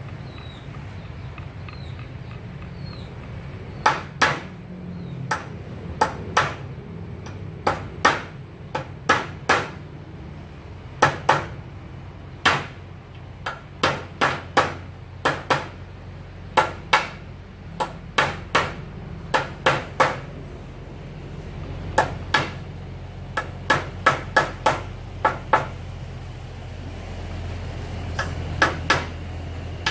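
Hammer striking a wooden door frame: sharp, ringing blows in irregular runs of two or three, starting about four seconds in.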